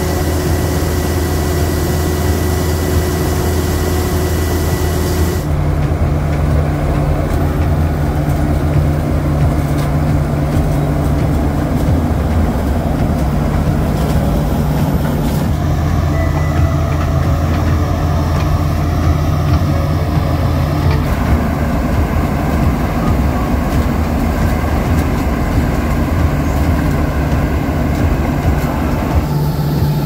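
Fendt Vario 828 tractors and a towed potato harvester working in the field: a steady low engine hum over the harvester's machinery noise. The sound changes abruptly several times as it cuts between shots.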